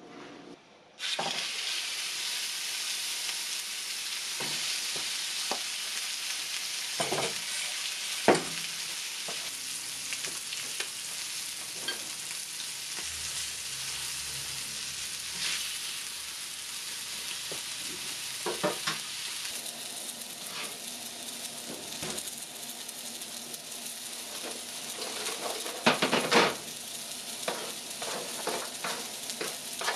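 Spice-rubbed chicken breasts frying in a hot skillet: a steady sizzle that starts suddenly about a second in as the meat goes into the pan. Scattered clicks and scrapes of tongs on the pan, and a louder clatter of metal near the end.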